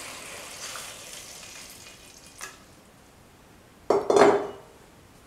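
Water poured into a hot stainless-steel pot of browned meat and chickpeas, sizzling as it hits the pot and dying away over about two seconds. A single short knock about four seconds in.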